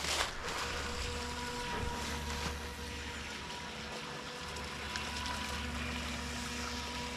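FTX Glader (TY XIN 725) RC jet sprint boat running on the water: its brushed electric motor and water-jet drive give a steady whine over a hiss of water.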